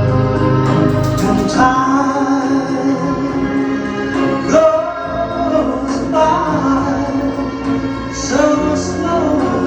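Music with female and male singing over a sustained keyboard or organ backing.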